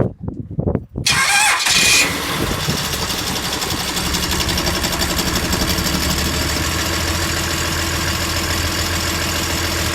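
A few knocks, then the boat's 4.2-litre turbodiesel starts about a second in with a brief loud burst and settles into a steady idle. The engine has just had its injection pump repaired.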